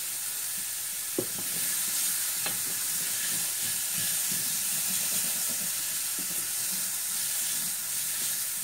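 Diced onion, garlic and ginger sizzling in hot oil in a stainless steel skillet, with a steady hiss. A wooden spoon stirs and scrapes them around the pan, after a single knock about a second in.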